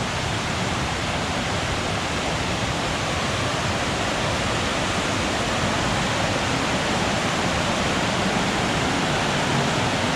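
Loud, steady rushing of a mountain creek in flood, swollen by tropical-storm rain, slowly getting a little louder.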